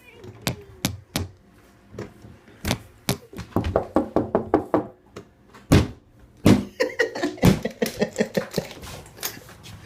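A run of irregular knocks and taps, fingers tapping on the camera body, coming thicker and louder over the last few seconds.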